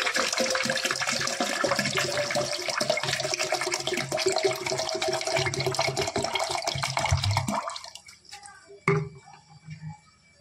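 Water poured from a plastic bottle into a plastic jug: a steady splashing stream whose tone rises slightly as the jug fills, stopping about eight seconds in. A single short knock follows about a second later.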